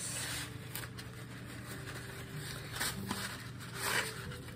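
Dry angel hair pasta being snapped by hand out of its cardboard box: a few short, brittle cracks and rustles, the loudest about three and four seconds in, with broken pieces dropping into a glass bowl.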